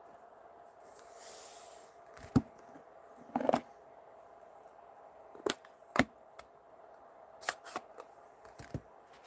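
Sharp plastic clicks and taps as a clear acrylic stamp block and plastic-cased ink pads are handled and set down on a craft mat, the loudest about halfway through. A brief soft rustle comes about a second in, over a faint steady hum.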